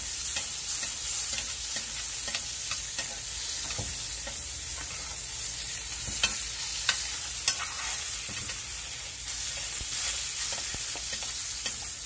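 Ribeye steak sizzling steadily in butter and oil in a hot skillet, with a metal spoon clinking and scraping against the pan as the fat is basted over the meat. Scattered pops and clicks run through the hiss, a few sharper ones about halfway through.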